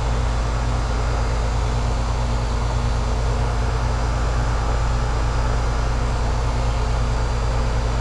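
A 2004 Goodman 3.5-ton heat pump's outdoor unit running steadily: a deep, even hum under a constant rush of noise. Frost is building on its condenser coil.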